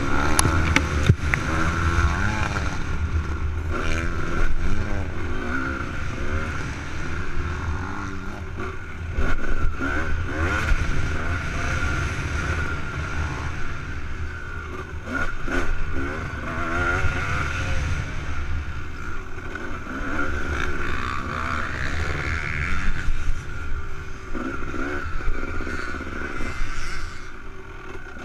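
Honda CR250R's 250cc two-stroke single-cylinder engine at race pace, its pitch rising and falling over and over as it revs up and backs off, with occasional sharp knocks.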